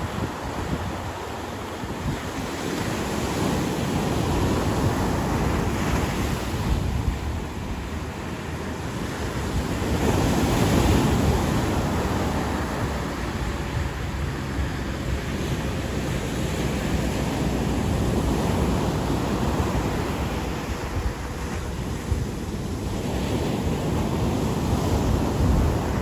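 Surf breaking and washing up on a beach in a steady rush, swelling louder about ten seconds in and again near the end, with wind buffeting the microphone.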